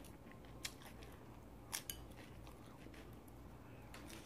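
Quiet eating with chopsticks, with a few faint clicks: one just under a second in and two close together near two seconds in, over a low steady hum.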